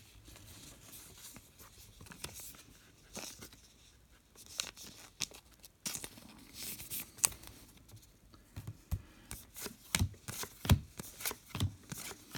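Trading cards being handled and slid through the hands: faint, scattered rustling, scraping and ticking of card stock. It gets busier in the last few seconds, with a few soft taps.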